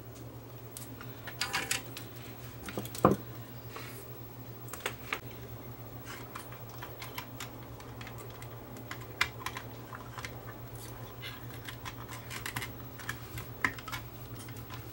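Light plastic clicks and taps as a small display circuit board is handled and pressed into place in a stereo's plastic front panel, with a sharper knock about three seconds in. A steady low hum runs underneath.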